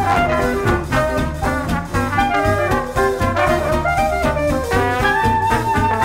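Jazz-style background music, with horns carrying the melody over a steady beat.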